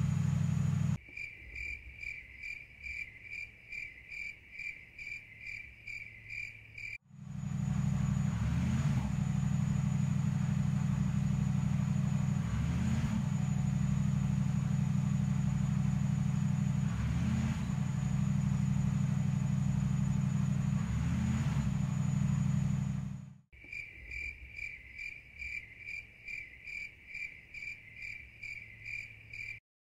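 Mercedes GTD race car's V8 engine idling while warming up, with a light throttle blip about every four seconds. Before and after the idling, the engine sound cuts off abruptly to a high, regular chirping, about three pulses a second, like a cricket.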